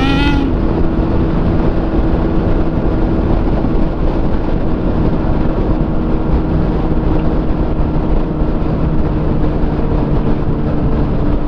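Motorcycle engine running steadily at highway cruising speed, heard from a helmet microphone with heavy wind rush.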